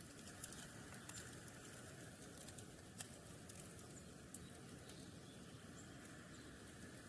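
Small birds foraging in snow: light, irregular taps and clicks, clustered in the first half, over a faint steady outdoor background.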